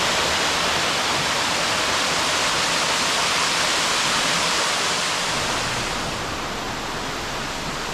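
Waterfall rushing steadily: a dense, even hiss of falling water, a little softer about six seconds in.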